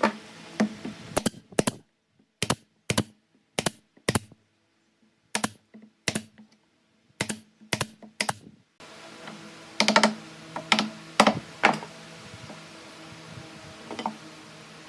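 Pneumatic nail gun firing nails into pine strips one after another, a sharp crack with each shot, about two to three a second. The shots come in two runs with a pause about nine seconds in, then one last shot near the end.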